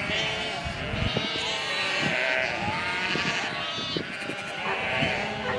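A flock of sheep bleating, many calls overlapping one another.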